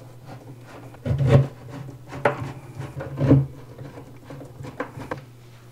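Hand screwdriver driving long screws into a particleboard dresser panel: a few irregular clicks and creaks as the screw turns and the panel shifts, over a steady low hum.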